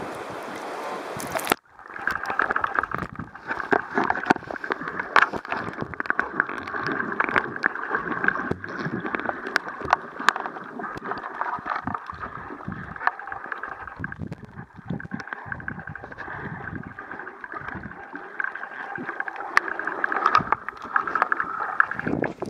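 Splashing sea water at the surface until the camera dips under about a second and a half in. After that comes the muffled sound of the sea heard through a submerged camera: a steady hiss with many scattered clicks and crackles. The camera breaks the surface again right at the end.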